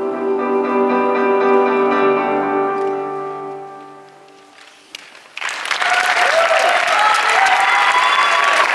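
Music ends on a long held chord that fades away over about four seconds. After a short lull, about five seconds in, an audience starts applauding loudly and cheering.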